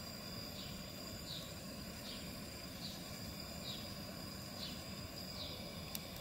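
Faint outdoor background: a steady low rumble under a thin steady high tone, with a short high chirp repeating a little more than once a second.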